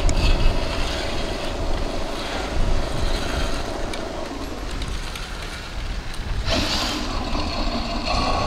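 Wind buffeting the microphone over a faint, steady electric motor whine; about six and a half seconds in, a burst of hiss joins in.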